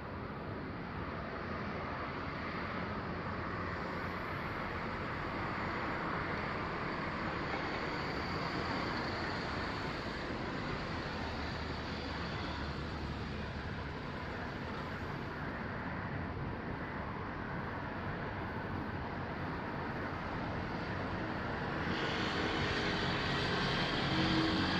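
Steady outdoor background rumble with no firework bursts, growing slightly louder near the end.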